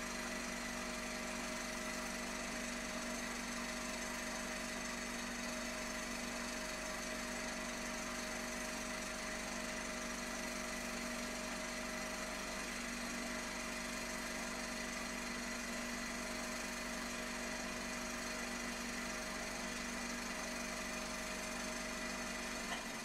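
A steady, machine-like buzzing drone: several held tones over an even hiss, unchanging in level.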